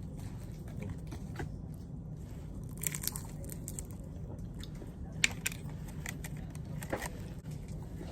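Someone biting and chewing a crispy egg roll, with a few scattered sharp crunches over a steady low hum.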